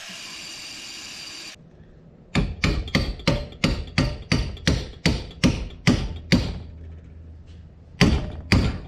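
Rapid hammer blows, about three a second, driving the filed-down rebar shaft into the old hammer head. A dozen or so strikes come in a run, then two more near the end. A steady noise stops just before the hammering starts.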